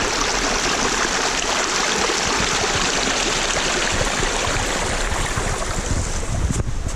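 Steady rush of a mountain stream running with spring snowmelt.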